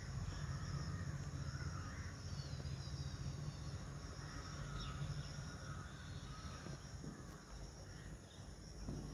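Outdoor rural ambience: a steady high drone of insects such as crickets, with faint bird calls now and then and a low rumble underneath.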